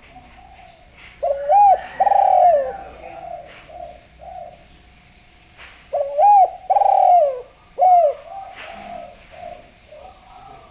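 Spotted dove (derkuku, tekukur) cooing: two loud phrases about five seconds apart, each a short run of rising-and-falling coos, with softer coos in between.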